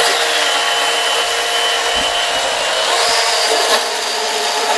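Blendtec countertop blender running at high speed, blending eggs, milk and flour into pancake batter. Its motor whine steps up in pitch about three seconds in.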